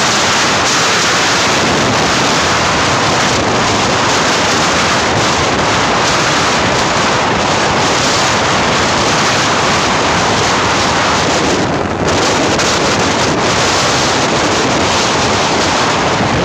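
Loud, steady wind rush buffeting the microphone of a phone filming from a moving motorcycle, with a brief dip about twelve seconds in.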